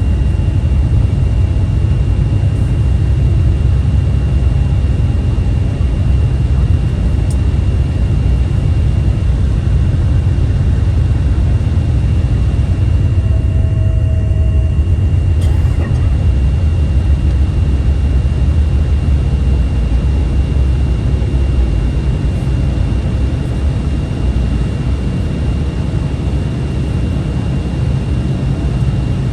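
Cabin noise inside an Embraer 175 airliner: the steady, heavy low rumble of its GE CF34-8E turbofans and the airflow, with a faint steady high whine throughout. The noise eases slightly near the end.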